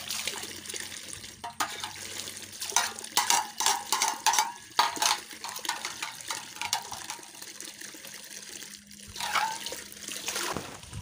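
A metal water pot being dipped into a spring-fed tank and filled, water gurgling and splashing into its mouth, with a run of louder splashes a few seconds in and another near the end.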